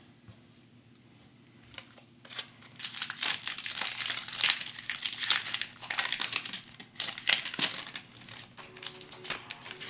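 Plastic trading-card pack wrapper crinkling and tearing as it is handled and opened, a dense run of sharp crackles starting about two seconds in and thinning out near the end.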